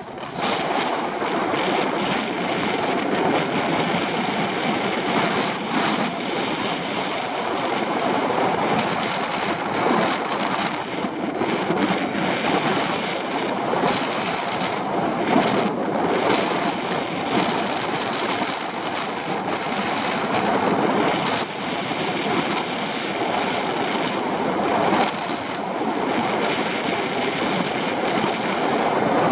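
Wind rushing over the camera microphone of a paraglider in flight: a steady, loud rush of air that swells and eases slightly.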